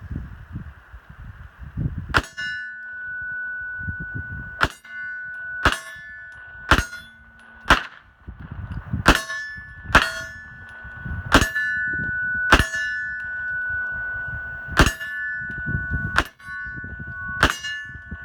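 9mm AR9 Colt-style pistol fired in single shots at an unhurried pace, about a dozen in all, each followed by the sustained ringing of struck steel targets.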